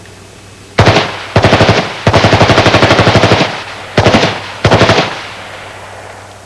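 Military automatic rifle firing on full auto in five bursts of rapid shots, the third and longest lasting about a second and a half, each burst followed by a short echo.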